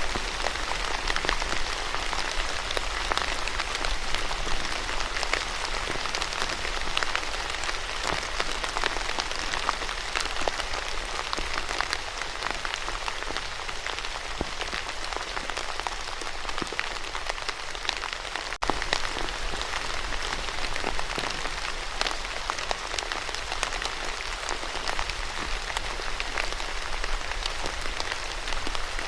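Steady rain falling, a dense, even patter of many drops. There is a momentary break in the sound about two-thirds of the way through.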